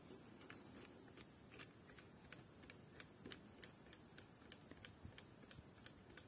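Near silence with faint, irregular clicking.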